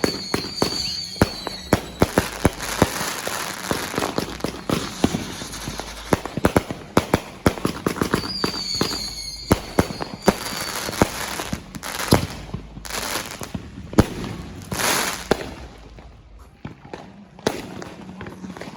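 Fireworks going off in quick succession: many sharp bangs and pops with crackling between them. A high whistle sounds near the start and again about eight seconds in, and the bangs thin out briefly near the end.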